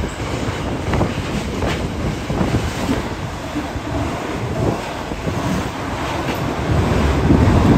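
Container wagons of an intermodal freight train rolling past close by: a steady rumble with wheels clicking over the rail joints now and then.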